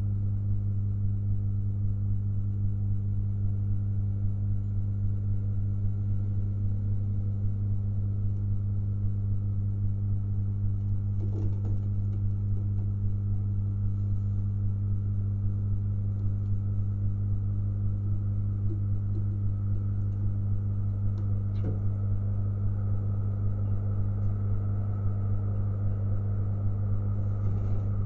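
Steady low electrical hum that never changes, with a couple of faint clicks about a third and three quarters of the way through.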